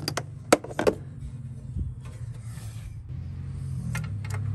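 Sharp metallic clicks and knocks from a wrench and parts being handled in a van's engine bay during an oxygen sensor replacement, several in the first second and a couple more near the end, over a steady low rumble of traffic.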